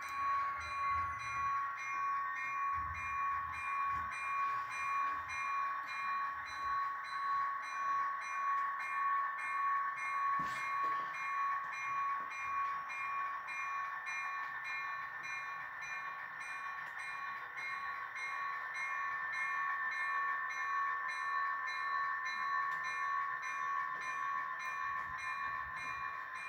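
Model steam locomotive running along the layout track: a steady whine with a regular pulsing beat, easing slightly as the train moves off. A single sharp click about ten seconds in.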